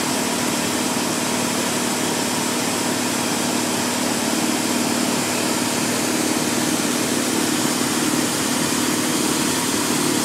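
Schwarze Avalanche mechanical street sweeper at work: its engine runs steadily while the spinning gutter broom scrubs the pavement with a steady hiss.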